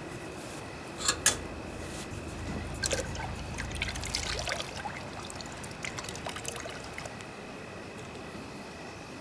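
Two sharp clicks about a second in, then a few seconds of small clinks and trickling liquid, over a faint steady high hum.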